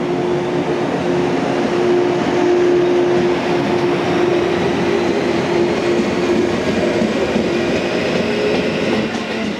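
Yellow JR West electric multiple unit running past along the platform track: a steady mechanical hum with a held tone and running noise from the cars.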